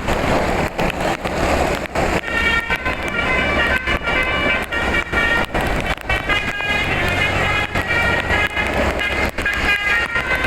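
Bus telolet horn, a set of air horns driven by a DAV tune module, playing a quick melody of stepped notes over a low engine rumble.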